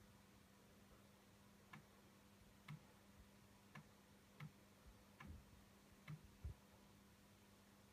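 Near silence with a faint steady low hum, broken by faint short ticks at uneven intervals of roughly a second, about eight in all.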